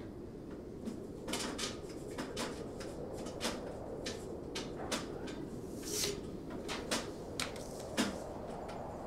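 Venetian blind slats rattling against a tilted-open window, a string of irregular sharp clicks and taps over a steady low rush of air.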